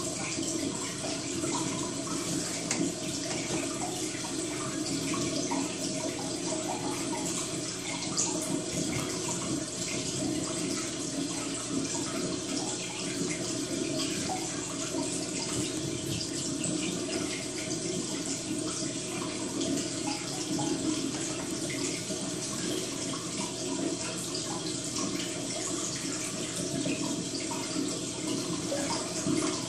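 Steady trickle of running water with a low hum beneath it, unchanging throughout.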